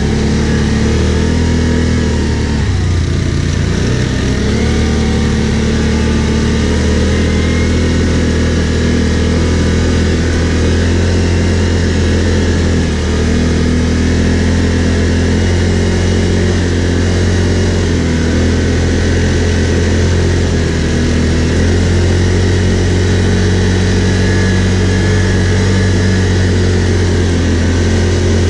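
Can-Am Outlander 570 quad's V-twin engine running under way at steady low revs, with a brief dip in pitch a few seconds in.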